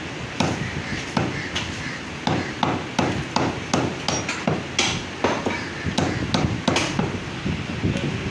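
Meat cleaver chopping mutton on a wooden tree-trunk chopping block: a steady run of sharp chops, about three a second.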